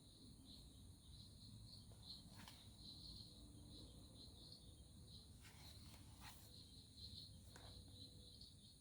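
Near silence: faint room tone with a soft, pulsing high-pitched chirring and a few faint clicks.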